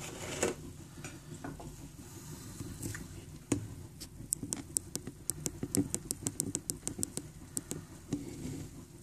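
A run of short, sharp clicks and ticks, several a second, starting about three and a half seconds in and thinning out near the end, over a low steady rumble.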